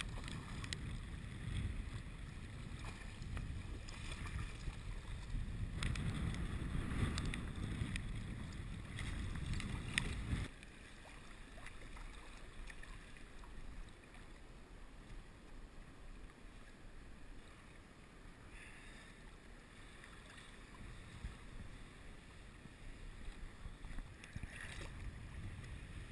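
Wind buffeting the microphone over splashing water, with a few sharp clicks. About ten seconds in the rumble drops suddenly, leaving a quieter wash of lapping water.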